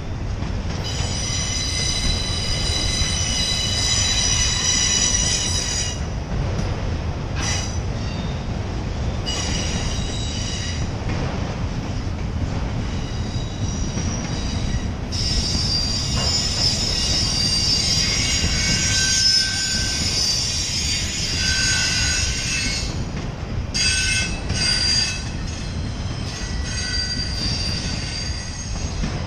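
Empty autorack freight cars rolling slowly past, their steel wheels squealing on and off in high-pitched stretches lasting several seconds, over a steady low rumble.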